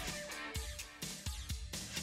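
Quiet background music with a light, steady beat.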